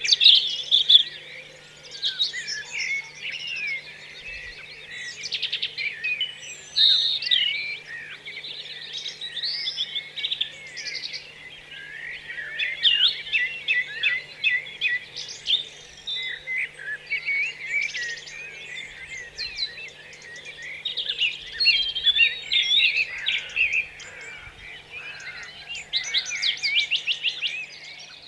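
Many caged birds chirping and calling at once, a dense overlapping chorus of short twittering calls and whistles, over a faint low steady hum.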